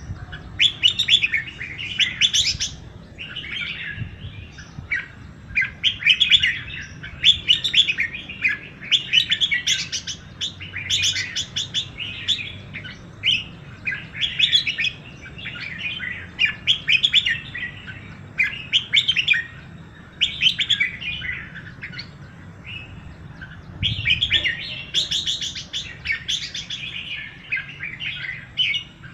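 Songbirds chirping and calling almost without pause: rapid bursts of short, high chirps, several birds overlapping.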